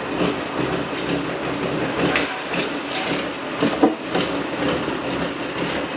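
An engine running steadily, with a few sharp metallic knocks over it.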